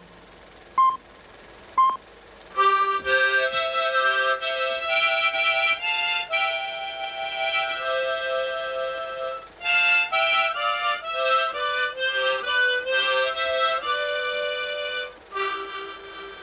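Three short beeps about a second apart, then a harmonica playing a melody with chords, with two brief pauses.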